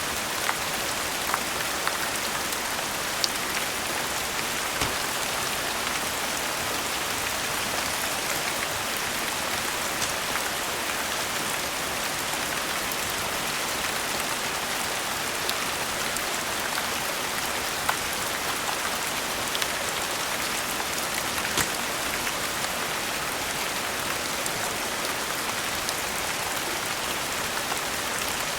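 Steady rain falling, an even hiss, with a few sharp crackling pops from a fireplace scattered through it.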